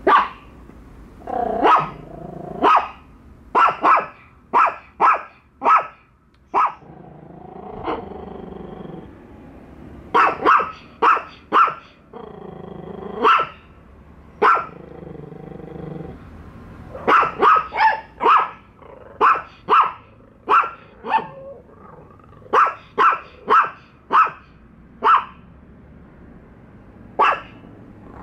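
Small dogs, a Yorkshire terrier and a Chihuahua, barking sharply over and over in quick runs at a plush toy dog, with low growls in between: a wary reaction to an unfamiliar object.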